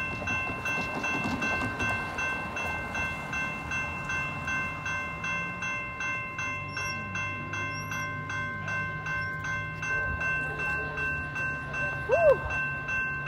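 Railroad crossing warning bell ringing with a rapid, even, steady rhythm as the crossing lights flash and the gates come down. A low steady hum joins about five seconds in, and a brief loud pitched sound comes near the end.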